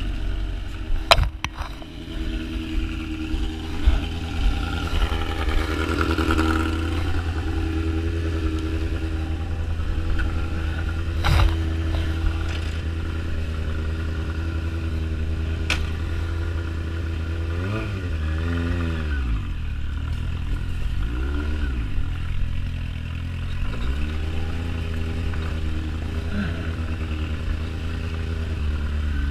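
Yamaha sport motorcycle engine idling steadily. In the second half the revs rise and fall briefly three times. There is a sharp knock about a second in and another around eleven seconds in.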